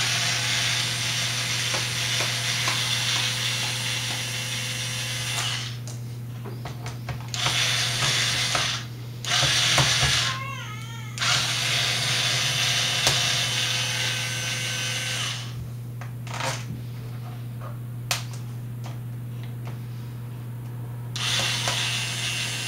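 A weak cordless drill-driver running in several bursts of one to four seconds each, backing out long screws from the underside of a laptop. A steady low hum runs beneath it.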